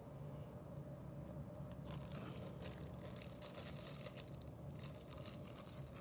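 Faint crinkling and rustling of packaging being handled, mostly from about two seconds in to near the end, over a steady low hum.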